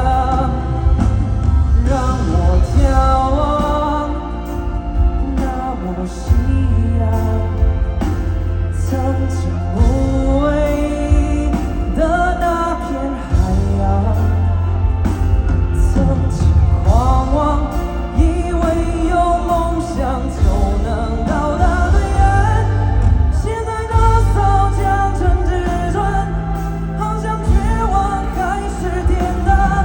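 Live pop song: singing over a band with heavy bass throughout.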